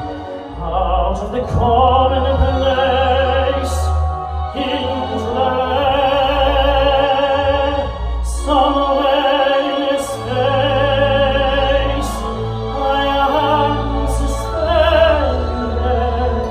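A male tenor singing in operatic style with vibrato, holding long notes, into a handheld microphone over an accompaniment with held low bass notes.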